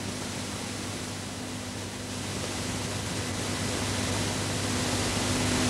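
Steady hiss with a low electrical hum underneath, growing gradually louder: the background noise of an old analogue video-tape transfer, with no music playing.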